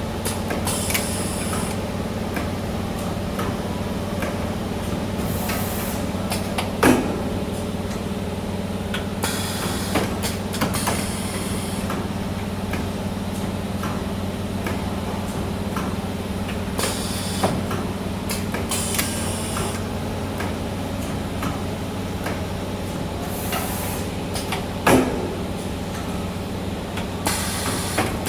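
CNC spring forming machine running while it bends car seat springs: a steady hum with repeated short hissing bursts and clicks, and two sharp clanks, about 7 and 25 seconds in.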